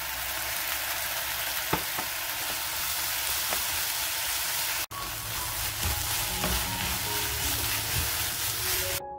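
Eggplant and onion sizzling in oil in a hot frying pan while being stirred with a wooden spatula, with a few sharp clicks of the spatula against the pan. The sizzling breaks off for an instant about five seconds in and stops just before the end as piano music comes in.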